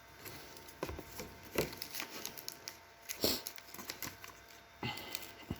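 Handling noise from fitting a battery into a small RC model plane: scattered clicks, light knocks and rustling, with the loudest knocks about a second and a half in and just past three seconds.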